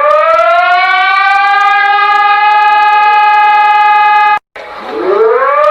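Civil-defence siren sounding a missile-threat warning. It winds up to a steady high wail and holds, cuts off abruptly about four seconds in, then after a brief silence winds up again near the end.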